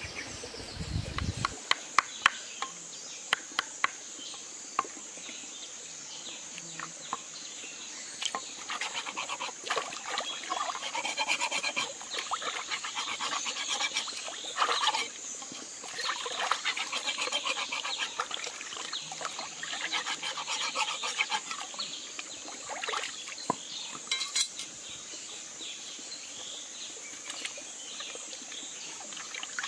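A knife chopping and scraping a fish on a wooden board, with a few sharp knocks in the first seconds. Then water splashing and sloshing as the fish is washed by hand in a shallow stream. A steady high insect drone runs underneath.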